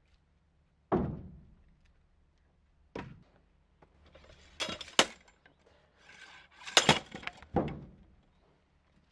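Manual wood splitter working through firewood: heavy knocks about a second in and at three seconds, then sharp cracking and splintering as the wood splits around five and seven seconds, with a last knock near eight seconds.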